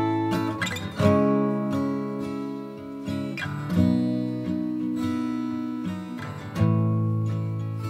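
Background music: acoustic guitar chords strummed and left to ring out, with a new chord about every three seconds.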